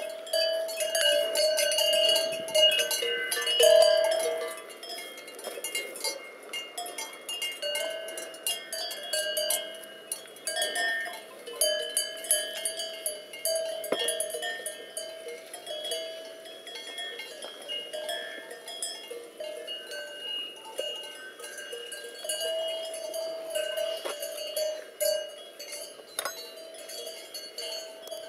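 Cowbells on cattle clanking irregularly as the animals move, a ringing metallic tone struck over and over; loudest in the first few seconds.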